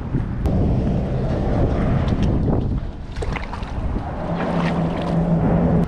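Wind buffeting the action-camera microphone, with a few light clicks in the middle and a steady low hum coming in about four seconds in.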